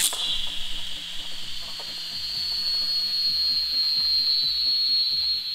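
3D-printed PLA whistling spinning top spinning fast, giving a steady, piercing high-pitched whistle over an airy hiss, the pitch sinking slightly toward the end as it slows. The whistle comes from the small unused screw bores in the top's upper face.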